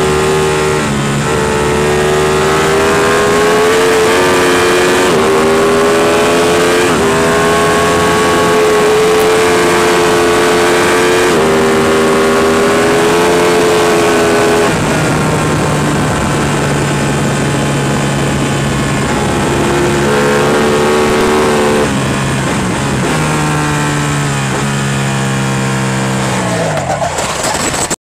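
Ducati 899 Panigale racing motorcycle's L-twin engine at race pace, heard from onboard: the revs climb and drop sharply with each upshift through the gears, then fall in steps on a run of downshifts near the end. The sound cuts off abruptly at the edit.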